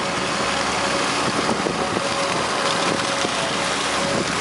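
Steady noise of a ship under way: a constant engine drone mixed with wind noise, with a faint steady hum.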